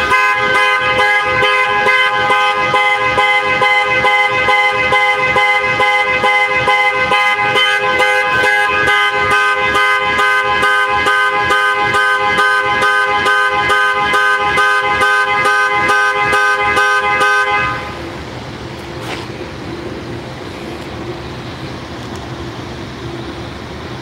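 A car horn held down without a break, a steady two-pitched blare with a regular pulsing in it, which cuts off suddenly about seventeen seconds in. After it comes a quieter outdoor background with a low hum.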